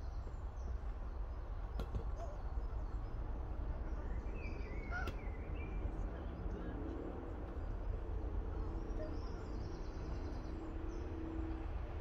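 Outdoor ambience: a steady low rumble, with birds chirping here and there in the background and two faint clicks, one about two seconds in and one about five seconds in.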